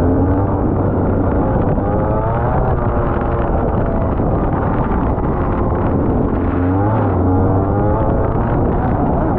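Rotax Max 125cc two-stroke kart engine heard onboard, its revs climbing and falling as the kart is driven. The pitch drops briefly about seven seconds in, as for a corner, then climbs again.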